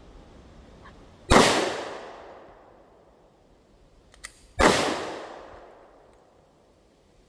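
Two handgun shots about three seconds apart, each sharp report followed by a long echo fading out, with a faint click just before the second shot.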